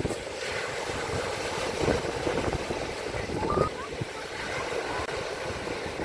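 Wind buffeting the microphone in irregular gusts over a steady rushing noise.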